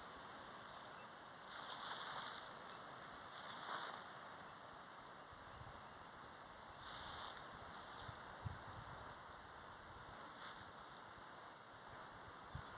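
Insects, crickets by the sound, chirping in a steady, fast, high-pitched pulse, with four brief louder bursts of high hissy noise rising over it.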